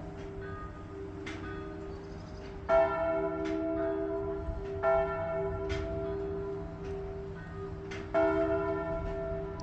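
Church bells ringing: several bells struck in irregular turn, each strike ringing on in a long overlapping hum, with the heaviest strokes every two to three seconds.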